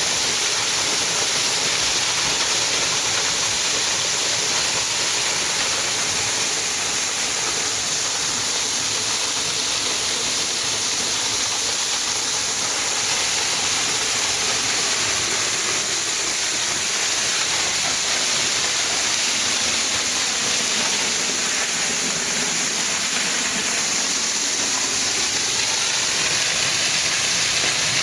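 Waterfall crashing down, heard from close behind the falling curtain of water: a loud, steady rushing hiss that barely changes.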